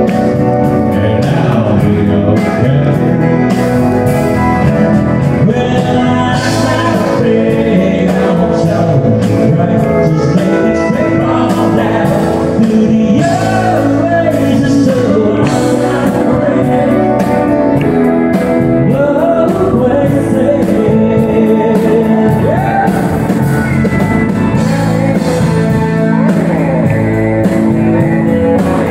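Live country band playing a song: acoustic guitar and a Telecaster-style electric guitar over drums, with singing.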